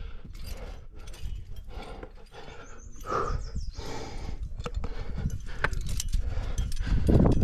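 A climber's hard, rhythmic breathing under exertion on an overhanging route, a few quick breaths a second, with a louder forced exhale near the end.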